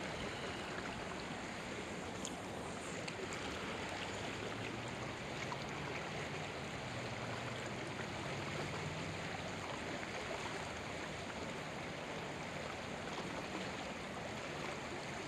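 Fast-moving creek current flowing steadily: an even rush of water.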